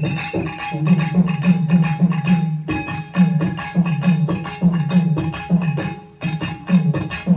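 Tamil folk drumming for a Pambai Aatam dance: pambai drums beating a fast, steady rhythm of about three strokes a second.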